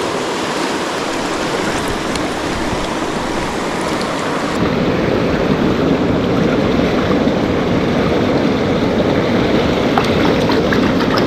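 River current rushing steadily over rocks. About four seconds in, the rush turns deeper and fuller and grows a little louder.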